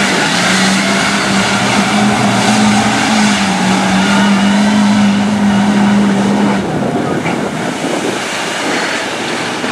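Ford Power Stroke turbo-diesel V8 of a lifted F-250 mud truck held at high, steady revs while its tires churn through deep mud and water. About two thirds of the way through, the engine note drops away.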